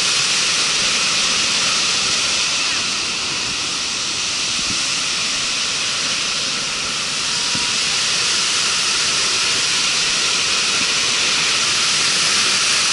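A large waterfall in heavy flow: a loud, steady rush of falling water that dips slightly for a few seconds in the middle.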